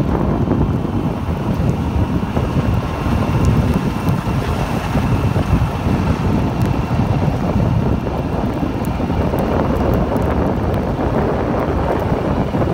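Wind blowing across the microphone in a snowstorm: a loud, steady rush of noise, heaviest in the low end.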